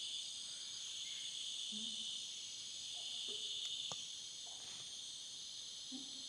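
Steady high-pitched insect chorus of tropical forest, with short low hooting calls of distant gibbons a few times and a single sharp click about four seconds in.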